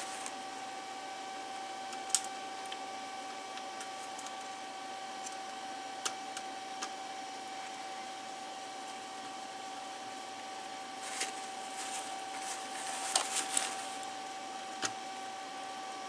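Steady high-pitched electrical whine with a light hiss from the workbench equipment, with a few light clicks of small things being handled and set down, and paper-towel rustling twice in the second half.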